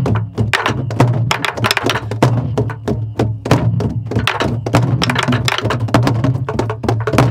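A group of sori-buk, Korean pansori barrel drums, played together in a fast practice pattern: deep palm strokes on the drumhead (deong, gung) mixed with sharp stick strokes (ttak), several strokes a second.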